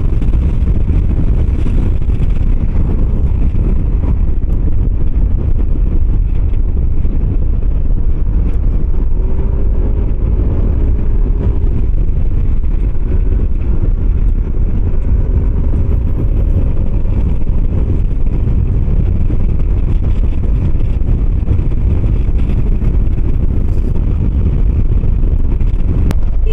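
Steady wind buffeting on the camera microphone while riding a 125 cc motor scooter at road speed, with the scooter's engine note wavering faintly underneath.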